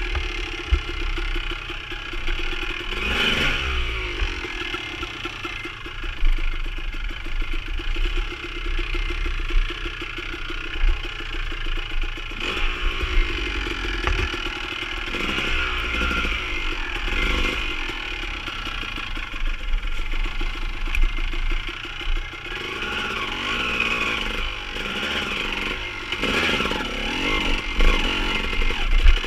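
Dirt bike engine running, held steady for several seconds and then revved up and down again and again as the bike is worked through deep mud.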